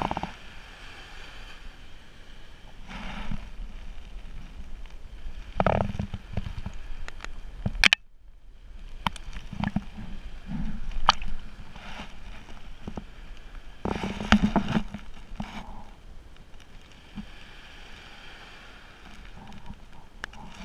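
Wind on the microphone and waves lapping at the shore, with a handful of sharp knocks and scrapes from a small action camera handled close to the sand, the loudest about fourteen seconds in.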